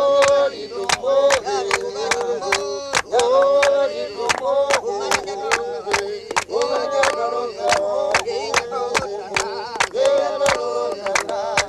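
Group of voices singing a short melody in repeated phrases, over sharp handclaps keeping a steady beat of about three a second.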